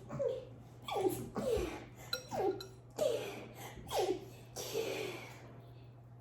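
A girl laughing in a run of short bursts, each falling in pitch, which stop about five seconds in.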